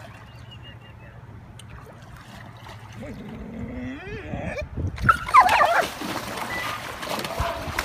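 A shepherd dog thrashing and splashing in canal water as a firefighter's catch-pole loop closes on it, starting suddenly about five seconds in and loudest then, with yelping cries over the splashing.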